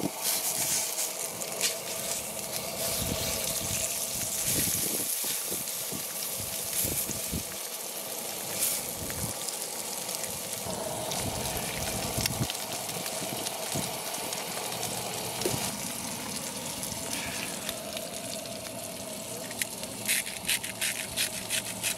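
Fish fillets frying in a Lodge cast-iron skillet: a steady sizzling hiss with many small crackles and pops.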